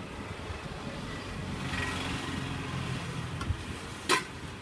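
A motor vehicle's engine rumbling past, louder in the middle, over the steady sizzle of undampori balls deep-frying in a kadai of oil. A single sharp knock near the end.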